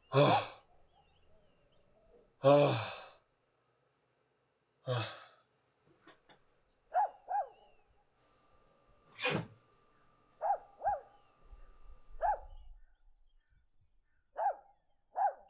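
A person's breathy sighs and short vocal sounds, spaced out with pauses: two long breathy ones early on, then several brief sounds that drop in pitch, mostly in pairs.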